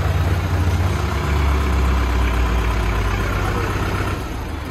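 Tractor diesel engine running steadily, heard close up from the tractor's own seat as a low drone that eases slightly near the end.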